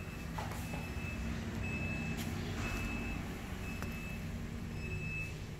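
Electronic beeping, a single high tone sounding about once a second, over a steady low rumble.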